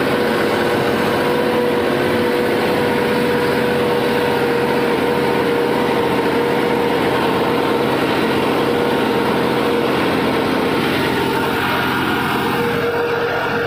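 New Holland 5620 tractor's 65 hp common-rail diesel engine running steadily while driving, with a steady whine over the engine noise.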